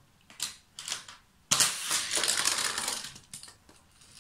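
Die-cast toy car clattering through a hard plastic toy car-carrier truck: a couple of clicks, then a loud rattle lasting about a second and a half, then a few lighter clicks.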